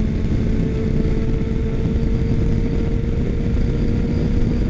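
Motorcycle cruising at freeway speed: a steady engine tone under a loud, constant rush of wind and road noise.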